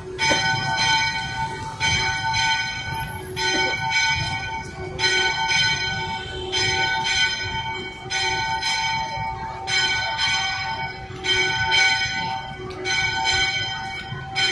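Church bells ringing, about ten strokes, roughly one every second and a half. Each stroke rings on and overlaps the next.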